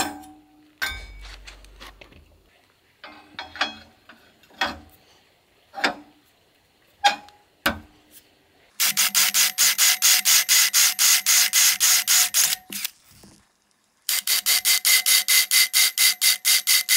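A few separate metal clicks and knocks as a drilling jig is set on a square steel post, then a cordless drill boring into the steel post in two runs, the second starting about 14 seconds in, with a fast, even pulsing chatter of about six beats a second while the post rings.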